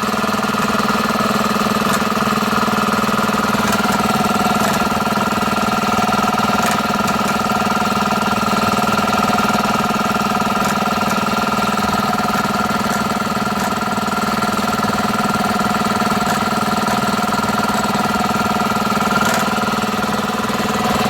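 Compressor running steadily: a low hum with a higher whine over it, and a faint tick now and then.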